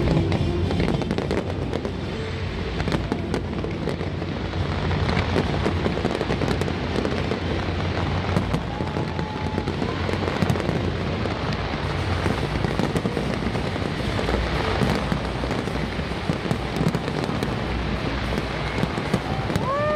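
Aerial fireworks display going off continuously, a dense run of bangs and crackles.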